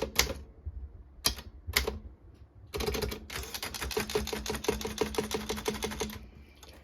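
Optima Elite 3 manual typewriter being typed on: a few separate keystrokes, then from about three seconds in a quick, even run of keystrokes lasting about three seconds before it stops.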